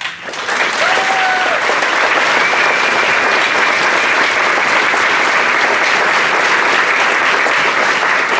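Large audience applauding steadily for the standing veterans, the clapping swelling up within the first half-second and holding at full strength.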